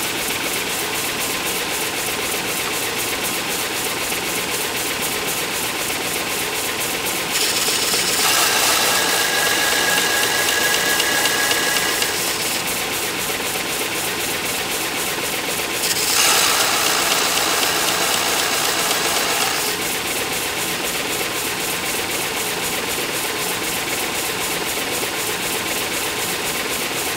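Shopsmith-driven 6-inch belt sander running steadily, with two louder spells of grinding hiss, each about four seconds long, a third and two-thirds of the way through, as the steel edge of a lathe chisel held in the sharpening guide is pressed against the fine sanding belt.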